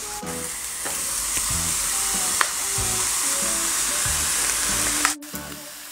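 Liquid nitrogen boiling off with a steady sizzling hiss as it is poured from a long-handled dipper onto warm stinky tofu in a plastic takeout box. The hiss cuts off abruptly about five seconds in.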